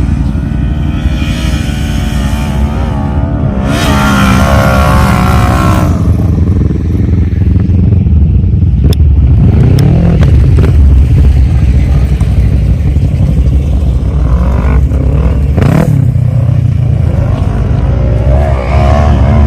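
ATV (quad bike) engines running and revving, their pitch rising and falling several times over a heavy low rumble, with a few sharp clicks.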